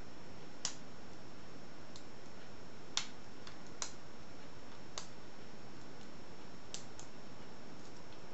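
Single pin picking a 70 mm discus padlock: a pick under wrench tension clicking on the pins as they are worked from front to back. About six sharp, short clicks come at irregular intervals, with a few fainter ticks between them.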